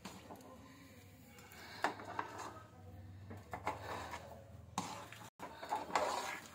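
Spoon scraping and knocking in a pan, stirring toasted sesame seeds into melted jaggery for til laddoos. The strokes are irregular, with a sharp knock about two seconds in and another near the end.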